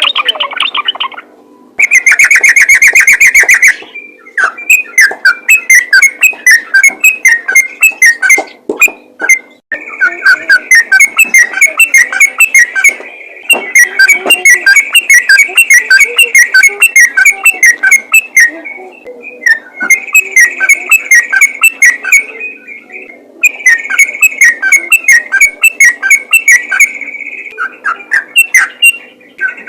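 Yellow-vented bulbul (trucukan) singing loudly in its rapid, continuous 'ropel' style: long runs of quick chattering notes, broken by several short pauses.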